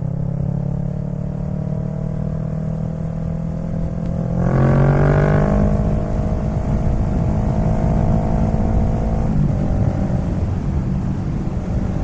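Kawasaki Z650's parallel-twin engine under way at a steady throttle. About four seconds in it gets louder and the note rises as the bike accelerates. It levels off, then eases about nine seconds in.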